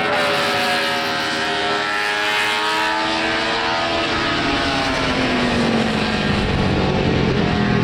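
Honda six-cylinder 1960s GP racing motorcycle engine running hard, a high, multi-toned exhaust note whose pitch falls gradually over about six seconds, then levels off.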